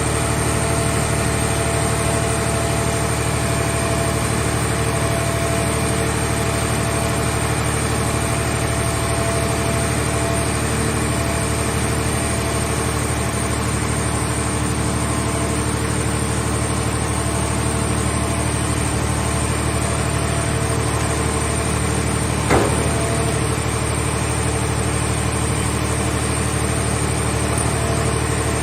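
Hydraulic scrap car-body baler's power unit running steadily with a constant hum, and one sharp knock about 22 seconds in.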